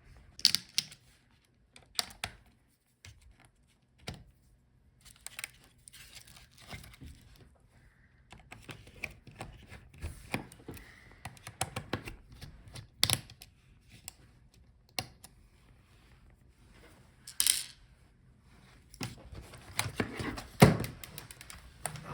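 Small metal screws and a screwdriver clicking and clattering as the hinge screws are taken out of a laptop: irregular sharp clicks and light rattles, busier and louder near the end.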